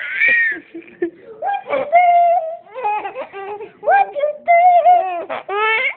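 A baby laughing in a string of high-pitched squeals and held, wavering notes with short breaks between them.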